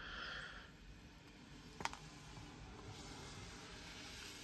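Faint handling of a folding knife and its small screwdriver on a bench: a short rustle at the start and a single sharp click about two seconds in, over low room hiss.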